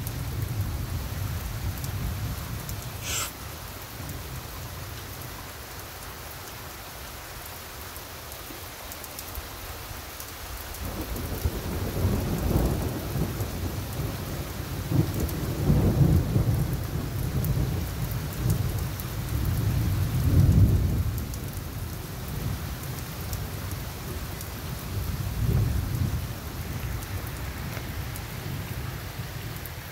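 Steady rain with thunder. A rumble dies away in the first few seconds, then a long roll of thunder swells in several waves from about a third of the way in, loudest around the middle, before fading near the end.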